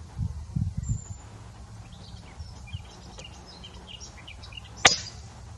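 A single sharp shot from a PCP air rifle near the end. Before it, birds chirp faintly and low wind rumbles buffet the microphone.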